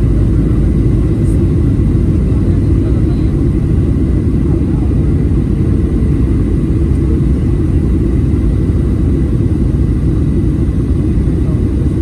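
Steady low cabin rumble inside a Boeing 737 in flight: jet engine and airflow noise heard from a window seat, unchanging throughout.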